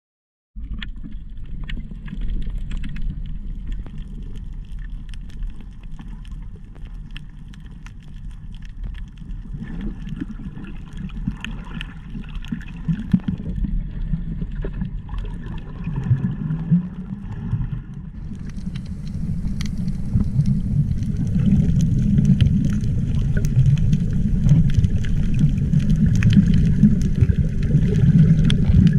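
Underwater sound from a camera on a reef: a low muffled rumble of water with many scattered crackling clicks, getting louder and brighter in the second half.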